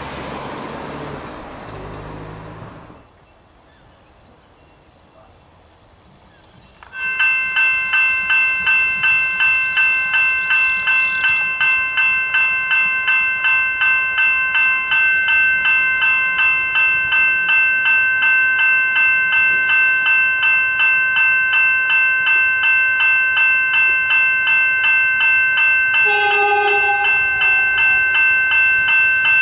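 Railway level-crossing warning bell starting up about seven seconds in and ringing steadily and loudly at about two strikes a second. It is the warning that the crossing has activated for an approaching train. Before it, a rushing noise fades out after a few seconds.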